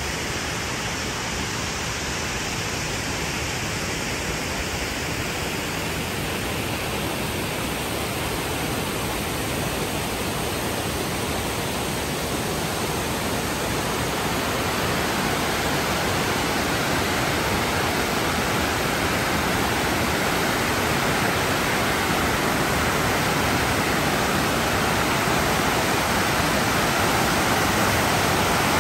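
Steady rushing of flowing or falling water, getting a little louder about halfway through.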